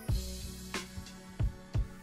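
Background music: a drum beat of kick and snare hits comes in right at the beginning, over held instrumental tones.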